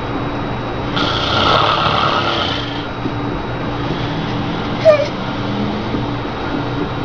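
A sleeping man snoring: one loud, rough snore about a second in that lasts nearly two seconds. A short, sharp sound with a quick falling pitch comes near the five-second mark.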